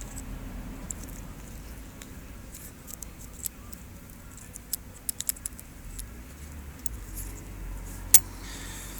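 Scattered light metallic clicks and taps as a scooter's cam chain tensioner with a broken spring is handled, with one sharper click about eight seconds in, over a low steady hum.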